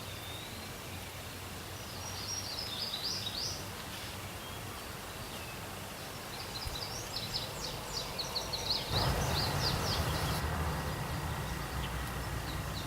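Songbirds singing in quick chirping phrases, two spells of song, over a steady outdoor hiss; from about nine seconds in a louder, fuller rush of noise joins.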